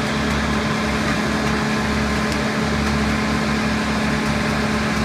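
Large whole-tree wood chipper and excavator running together while spruce trees are fed into the chipper: a steady, loud engine drone with a constant hum and an uneven low rumble.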